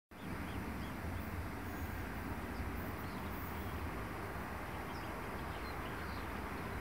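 Steady low outdoor rumble, with a few faint bird chirps.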